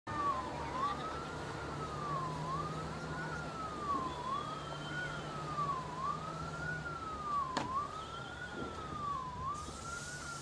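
Siren wailing, its pitch rising and falling in a slow even cycle about every second and three-quarters, over a low steady hum. A single sharp click comes about three-quarters of the way through.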